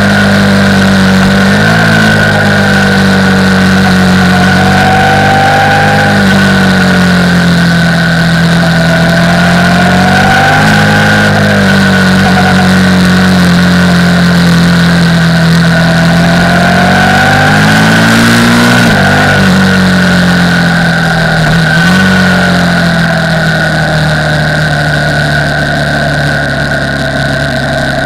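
KTM 990 Supermoto R's LC8 V-twin engine running under way, its pitch rising and falling a few times with the throttle, a little quieter near the end.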